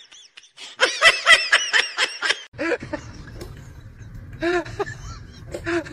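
High-pitched laughter in a quick run of short bursts for about two seconds, followed by a low steady hum with a couple of brief voice sounds.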